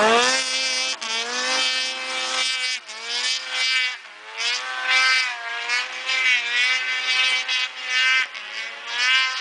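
Ski-Doo MXZ 600X snowmobile's two-stroke twin revving through an MBRP aftermarket exhaust can: a quick rise to high revs at the start, then a run of short throttle blips, about one a second, each pitch climbing and falling back.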